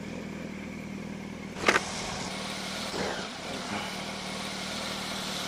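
Motorcycle engine running steadily at low road speed under wind and road noise. A sharp knock about a second and a half in stands out above it, with a softer one a second later.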